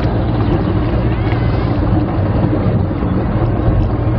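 Roller coaster car climbing its lift hill: a steady, loud low mechanical rumble from the lift and track, with wind buffeting the microphone.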